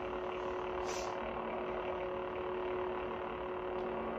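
Lightsaber sound boards playing the steady idle hum of lit blades, a low electronic drone made of a few steady tones.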